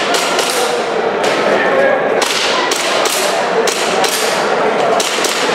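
A gas blowback airsoft pistol firing about ten sharp shots, unevenly spaced, in pairs and singles, as the shooter engages targets.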